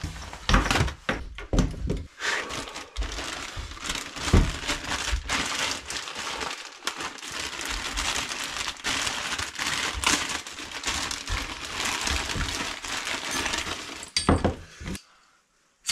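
Crinkling and rustling of gear being handled, with a few heavier knocks in the first seconds; the crinkling stops shortly before the end, followed by a couple more knocks.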